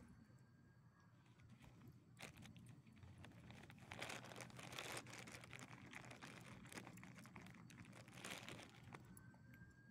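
Faint crunching and rustling of movement on loose gravel, louder about four seconds in and again near the end, with a few sharp clicks.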